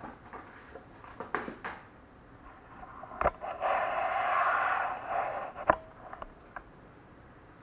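Hands handling papers and packaging on a tabletop: a few light taps and clicks, then about two seconds of rustling with a sharp tap near the end.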